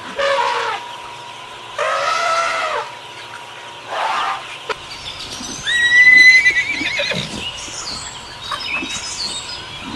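Horse whinnying several times: three shorter calls, then a loud, high whinny about six seconds in that ends in a quaver, followed by fainter calls.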